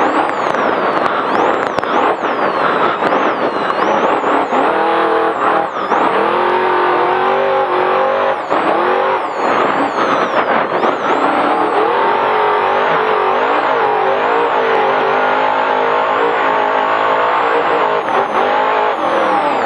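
Trophy Truck race engine at full throttle over rough desert terrain, its pitch rising and falling repeatedly as it revs through the gears, over a constant rush of tyre, suspension and wind noise heard from inside the cab.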